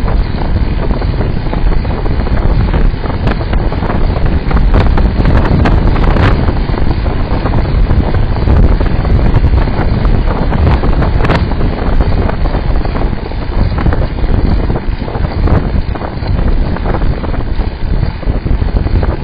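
Wind buffeting the microphone of a camera on a moving road bike: a loud, steady low rumble, with frequent small knocks and rattles throughout.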